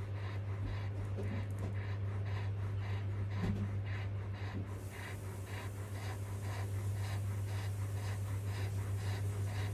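Alaskan Malamute breathing quickly and rhythmically, about two and a half breaths a second, like light panting. A steady low hum runs underneath.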